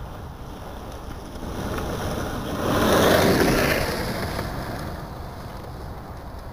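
Longboard wheels rolling on an asphalt path, swelling to a peak as the rider passes close about three seconds in, then fading as he rolls away. Wind rumbles on the microphone throughout.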